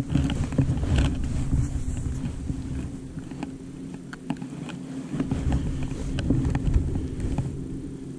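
Wind rumbling on the microphone over a steady low hum, with scattered light clicks and knocks as a small smallmouth bass is unhooked and handled in the boat.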